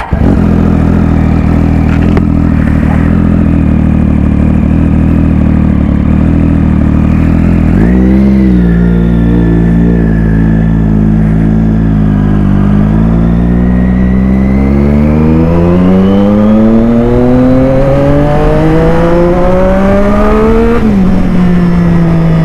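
Sport motorcycle engine catching from the starter and running at idle, with a quick blip of the throttle about eight seconds in. It then revs up steadily as the bike pulls away, and the revs drop suddenly near the end.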